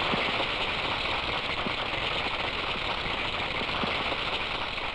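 Sustained, steady applause from the members of a parliamentary assembly after a speech.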